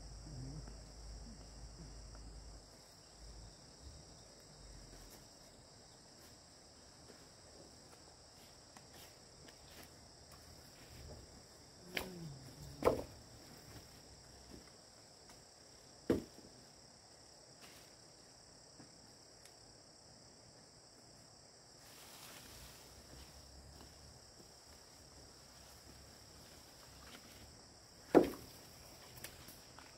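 Insects droning steadily on two high, unbroken pitches, with a few sharp knocks, loudest of all, about halfway through and near the end.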